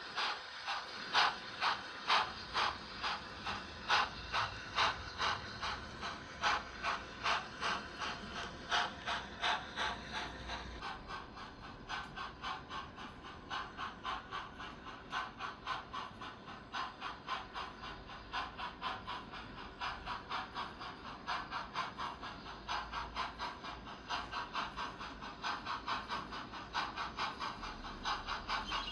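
Sound-decoder steam exhaust of a Thompson A2 three-cylinder Pacific, played by a Locoman Sounds profile on a Doehler & Haass decoder in a Hornby OO gauge model. The chuffs are even and quicken steadily as the locomotive gathers speed. From about eleven seconds in they are softer and faster.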